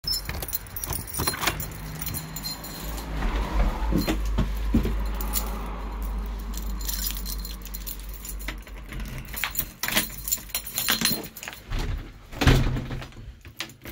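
A bunch of keys jangling and a key working the lock of a uPVC front door, with repeated clicks and a loud clunk of the lock or handle near the end. A low rumble runs through the middle.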